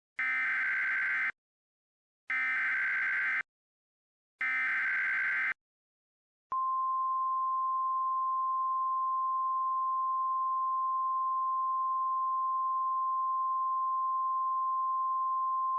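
Emergency alert tones: three short bursts of SAME digital header data, each about a second long and about two seconds apart, then, a little under halfway in, the steady single-pitched 1050 Hz NOAA Weather Radio warning alarm tone. The tones herald a flash flood warning.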